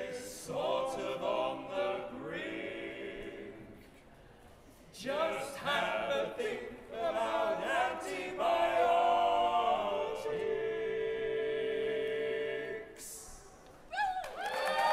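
A group of voices singing unaccompanied in phrases with short breaks, holding one long note about ten seconds in.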